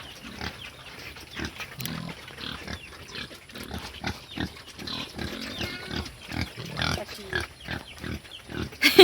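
Pigs grunting, short calls following each other quickly and irregularly, with a loud sharp sound near the end.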